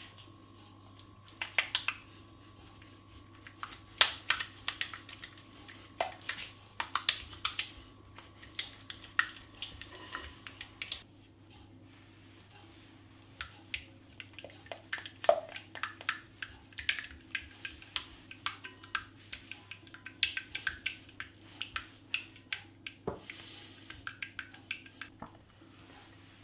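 Silicone spatula stirring thick chocolate ganache in a glass bowl: irregular clicks and taps of the spatula against the glass, with a short pause about halfway through.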